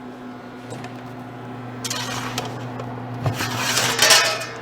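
A steady low hum from the Turbochef FIRE oven. About two seconds in, a rushing, rubbing noise builds and then cuts off near the end as the pizza on its metal screen is loaded into the oven.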